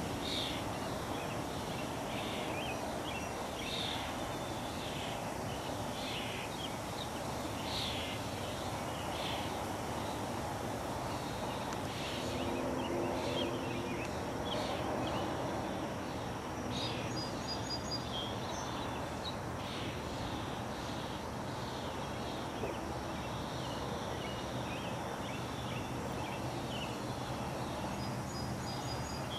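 Outdoor background noise with birds chirping, short chirps repeating about once a second, and a brief high twittering phrase twice, about halfway through and near the end.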